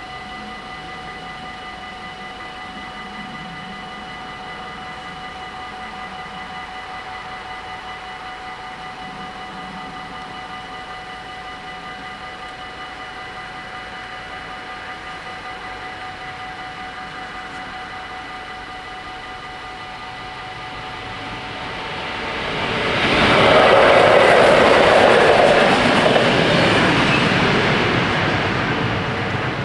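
Level-crossing bells ring with a steady tone that fades away over the first dozen seconds. Then a train, locomotive 1251 hauling a steam train, approaches and passes over the crossing. Its wheel and rail noise rises about two-thirds of the way in, is loudest for several seconds, and eases off near the end.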